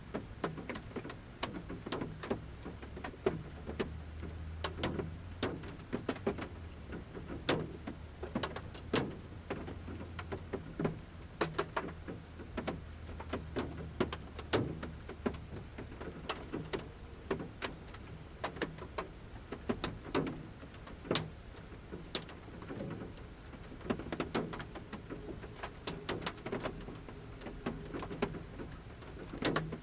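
Large raindrops falling from the forest canopy onto the metal roof of a camper van, heard from inside: sharp ticks and taps at irregular intervals, some louder than others, over a soft rain hiss.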